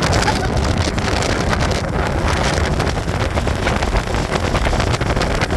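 Wind rushing over the microphone of a moving motorcycle, a loud steady buffeting with the motorcycle's engine running low underneath.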